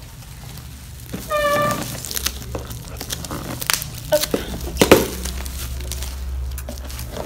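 Bubble wrap crinkling and crackling as it is pulled off a cardboard box, with scattered sharp crackles, the loudest about five seconds in.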